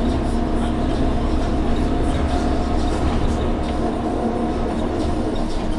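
Orion VII NG CNG transit bus under way, heard from inside: its Cummins ISL-G natural-gas engine and Allison B-400R drivetrain running steadily over low road rumble, with a steady hum in it.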